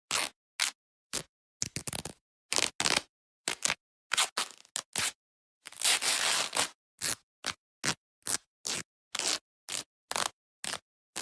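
Velcro hook-and-loop fastener ripping apart in a series of short rips, each cut off into dead silence. One longer rip of about a second comes midway, and after it the rips come short and quick, two or three a second.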